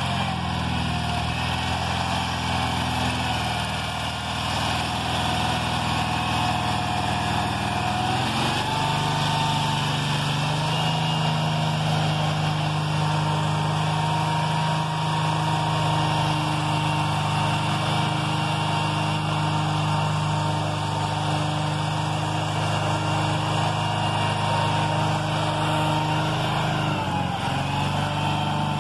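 1976 Wheel Horse D-160 garden tractor's engine running steadily while the tractor pushes snow with its front blade. The engine note steps up about a third of the way through and dips briefly near the end.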